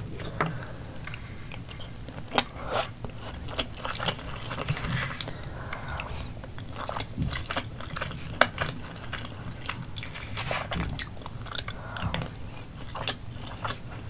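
Close-miked chewing and wet mouth sounds of a person eating spoonfuls of sauce-coated rice, with many short, sharp clicks scattered irregularly throughout.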